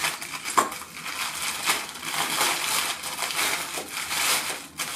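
Tissue paper crinkling and rustling as hands unfold and crumple it to unwrap a small item, a continuous crackle that dies away just before the end.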